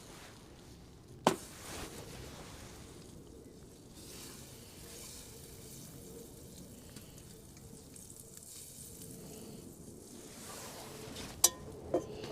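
Steak sizzling in a titanium skillet, a faint steady hiss, with a sharp click about a second in and two more near the end.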